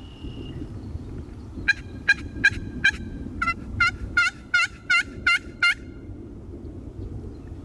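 A series of turkey yelps: four evenly spaced notes, then a quicker run of about eight more, each note sharp and dropping in pitch at its end. A steady low rumble lies underneath.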